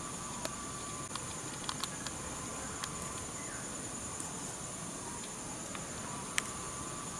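Steady high-pitched insect chorus buzzing in the bush, with a few short clicks scattered through, the sharpest near the end.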